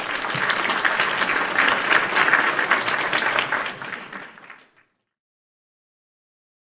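Canned audience applause, a dense clatter of many hands clapping that fades out about four and a half seconds in.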